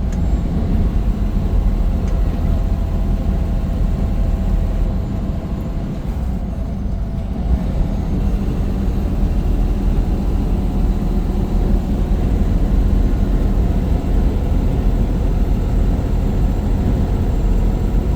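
Steady road and engine noise of a car driving at speed, a low rumble that holds even throughout.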